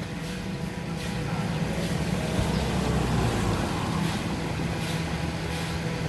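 A motor vehicle's engine running steadily as a low hum, swelling a little in the middle.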